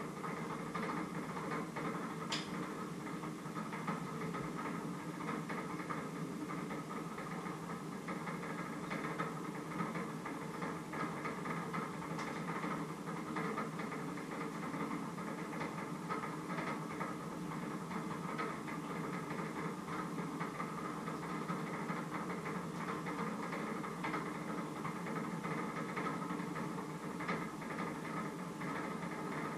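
Steady mechanical hum with a few faint, short clicks and knocks scattered through it.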